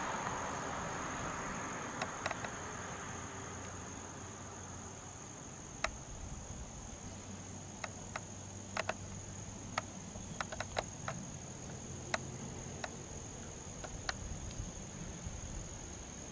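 A steady high-pitched insect drone, while the 2009 Dodge Challenger R/T's 5.7-litre Hemi V8 fades away into the distance over the first few seconds. From about six seconds in come scattered sharp clicks.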